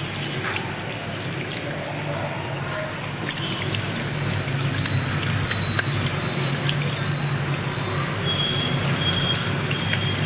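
Handheld shower head spraying water onto wet hair at a shampoo basin, a steady rush of water with a low hum beneath it. A faint, thin high whistle comes in a few seconds in.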